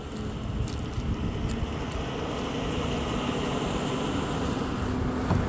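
Steady road-traffic noise with a vehicle's engine hum, slowly growing louder.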